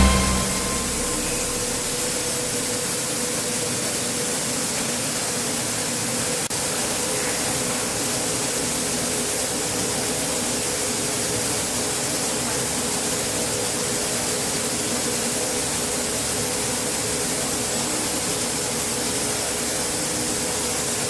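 Automatic core drill sandblasting machine running: a steady hiss of blasting air with a faint hum under it.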